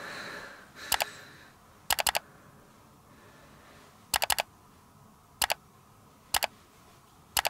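Sharp computer clicks in quick runs of two to four, six runs in all, spread across several seconds, as a folder on the computer is selected and deleted.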